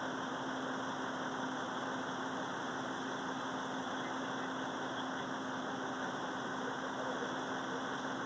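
Fire engine idling: a steady, unchanging engine drone with a constant hum.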